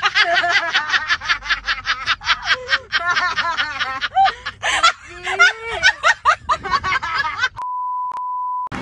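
Rapid high-pitched snickering laughter, many short bursts a second. Near the end it cuts to a steady 1 kHz test-tone beep from TV colour bars, broken once briefly.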